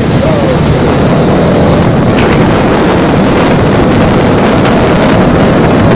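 Motorcycle engine running at steady cruising speed, mixed with heavy wind rushing over the microphone.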